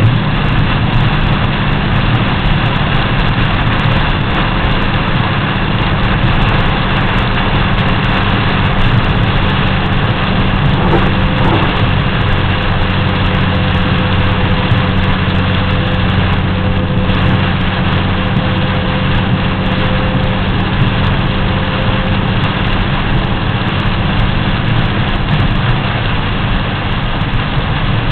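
Steady in-cab noise of a vehicle driving through heavy rain: a constant engine hum under the hiss of tyres on the wet road and rain on the windshield.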